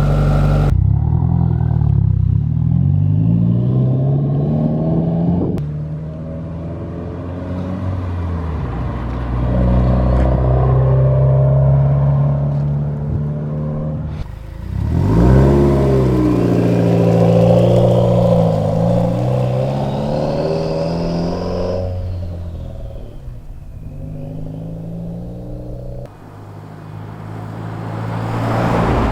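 Subaru WRX's turbocharged flat-four exhaust through an Invidia R400 cat-back, in several short edited clips: revs climbing and falling, with abrupt cuts between clips. A faint turbo whistle rises and falls over the engine in the middle clips.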